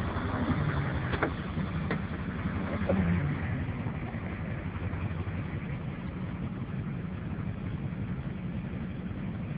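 A truck engine idling steadily. In the first three seconds there are two sharp clicks and a thump as the truck's door is opened and shut.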